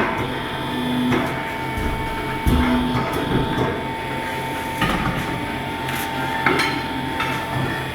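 Large-wheel tyre changer machine at work: a steady machine hum under irregular metallic knocks and clanks, with two heavier thuds about two seconds in.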